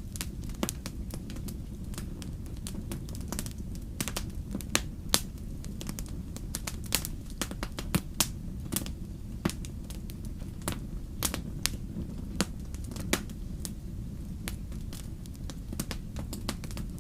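Wood fire crackling: irregular sharp pops and snaps, a few much louder than the rest, over a steady low rumble.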